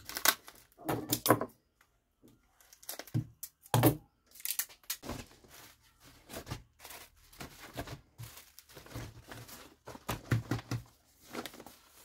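Plastic bubble wrap and a yellow padded envelope rustling and crinkling as they are handled for packing, in irregular bursts with short pauses.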